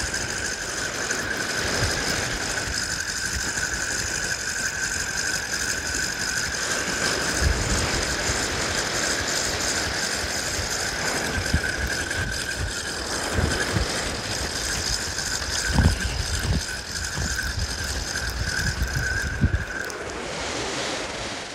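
A sea-fishing reel being wound in at a steady pace, its gears giving a continuous whir that stops near the end.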